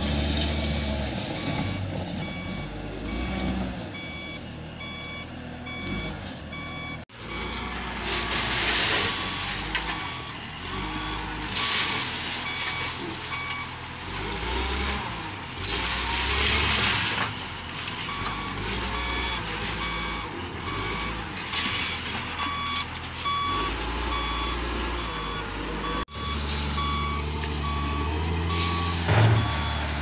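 Caterpillar 938G wheel loader's diesel engine running as the machine works, its reversing alarm beeping steadily about twice a second, with a few louder noisy surges along the way.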